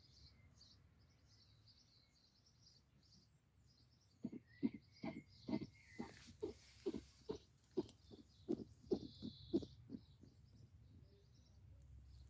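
A sleeping hedgehog snoring: a run of short, soft snores, about two to three a second, starting about four seconds in and stopping about ten seconds in. Faint high bird chirps sound through the quiet before it.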